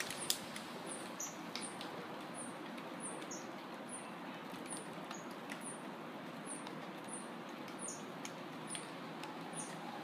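Wind rustling the leaves of a mango tree. Over it comes a steady run of short, very high chirps about every half second, and a sharp click just after the start.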